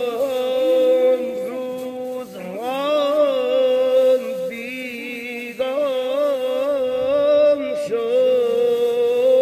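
A solo voice singing a slow, unaccompanied Persian vocal line, holding long notes with wavering, trilled ornaments and short breaks between phrases.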